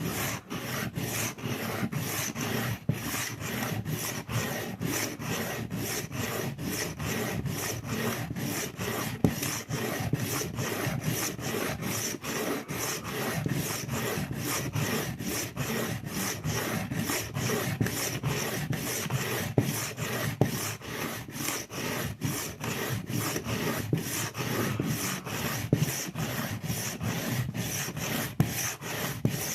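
Kitchen knife blade stroked back and forth on a diamond sharpening stone, a steady rasping scrape at about three strokes a second.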